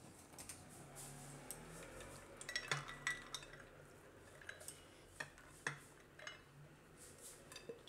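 Silicone spatula scooping makhana chaat out of a glass bowl onto a plate: faint, scattered taps and scrapes of the spatula against the glass and the plate as the fox nuts tumble over.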